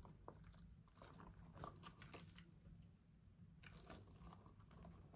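Faint crackling crunch and squish of a bead-filled stretchy Goo Jit Zu Spider-Man figure as its skin is pulled and squeezed by hand.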